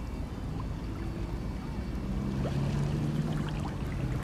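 Wind rumbling on the microphone outdoors, with a low steady hum joining about two seconds in.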